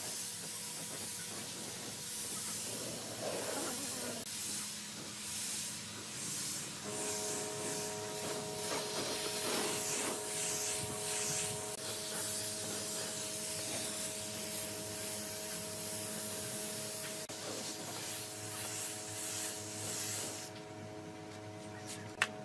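Compressed-air spray gun hissing steadily as it sprays finish, with the hiss cutting off about two seconds before the end. A single sharp click comes just after.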